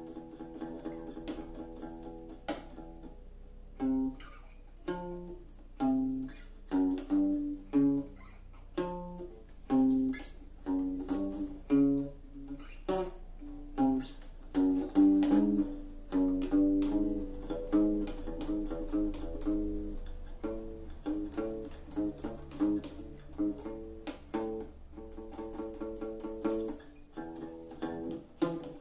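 Small acoustic guitar played by a child: single notes plucked one at a time, each ringing out, about one a second at first and coming quicker and overlapping in the middle.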